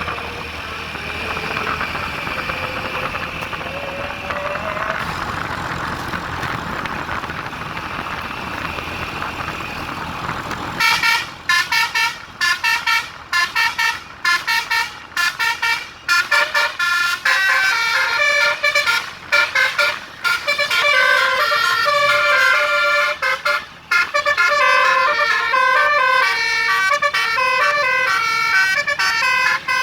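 For about the first ten seconds there is steady vehicle noise. Then a bus's Basuri musical 'telolet' air horn starts up and plays a tune of quick, stepped notes, with short breaks between phrases.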